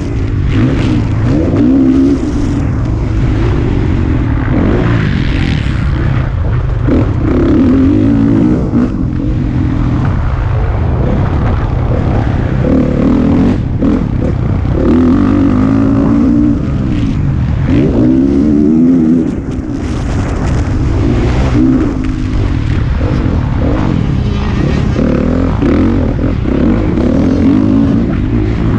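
Motocross bike engine heard close up from onboard, revving up and falling back over and over as it is ridden hard around a dirt track and shifted through the gears.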